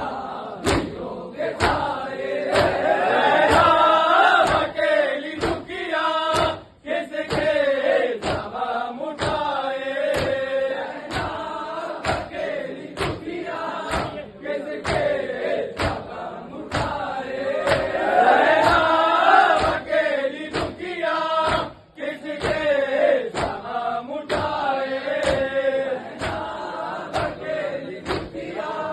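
Noha, a Shia lament, chanted by a group of men led by a reciter, over a steady rhythm of open hands slapping chests (matam).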